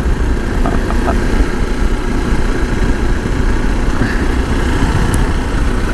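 Steady engine and road noise of a vehicle travelling along a road, a continuous low rumble with no clear change.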